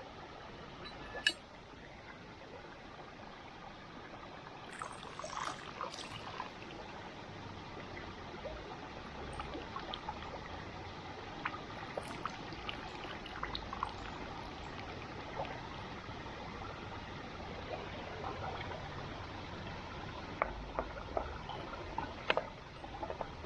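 Steady sizzling hiss of paella cooking in a small cast iron Dutch oven over a wood fire, with scattered sharp crackles and clicks.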